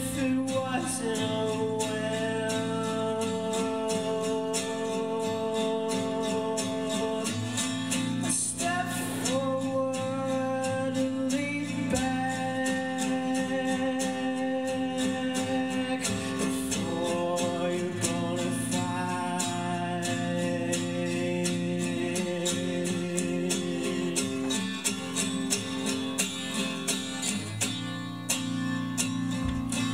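A man singing a song while strumming an acoustic guitar, with long held notes in the voice over steady chords.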